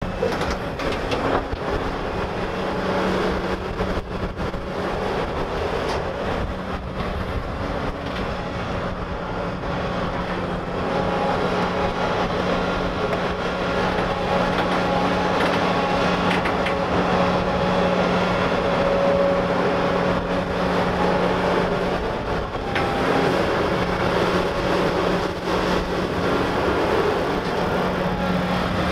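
Large Volvo EC950F hydraulic excavator working: its diesel engine runs with a steady hum under hydraulic load as it digs, swings and loads soil into an articulated dump truck, a little louder from about ten seconds in.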